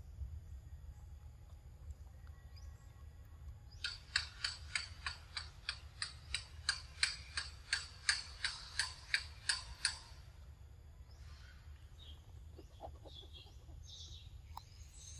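Rhythmic pulsing call of a wild animal: a train of sharp, evenly spaced high notes, about three a second, starting about four seconds in and stopping about six seconds later, over a steady low rumble.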